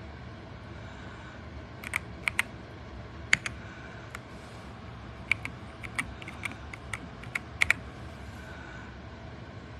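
Keystrokes on an RK Royal Kludge R75 gasket-mounted mechanical keyboard: about a dozen single and paired presses at an irregular pace, with pauses at the start and near the end.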